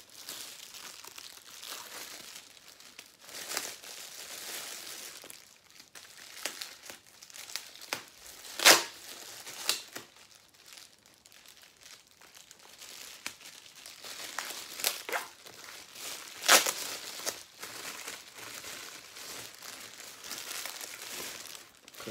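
Clear plastic wrap and brown packing paper crinkling and rustling as they are pulled off a lightsaber hilt, with a few sharp rips, the loudest about nine seconds in and again past the middle.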